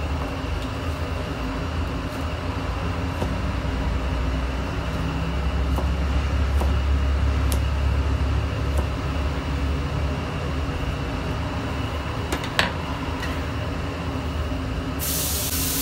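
Cleaver knocking now and then on a plastic cutting board as cooked lamb kokoreç is chopped into small pieces, with one sharper knock about three-quarters through, over a steady low rumble that swells in the middle. Near the end a loud frying hiss from a griddle comes in.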